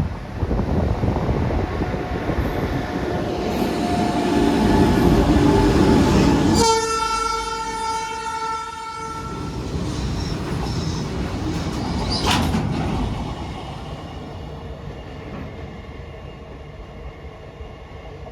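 A train passing close by, its rumble building over the first six seconds, then a loud horn blast of about three seconds. A sharp knock follows, and the rumble fades away.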